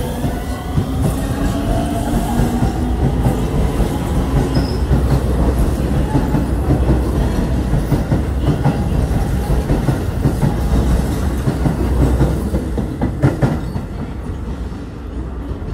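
Keio Line electric commuter train pulling out of the station: a rising whine from the traction motors in the first few seconds, then the wheels clattering over the rail joints as the cars go by, fading near the end as the last car clears the platform.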